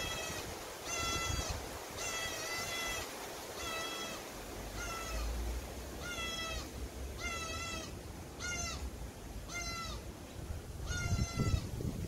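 Juvenile channel-billed cuckoo screaming for food: a run of harsh, wailing begging calls, about one a second, some short and some drawn out.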